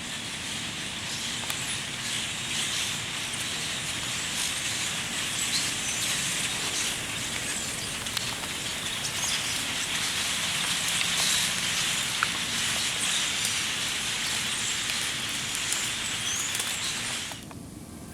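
Light rain pattering steadily on leaves in the woods, a continuous hiss with scattered faint drop ticks, stopping abruptly near the end.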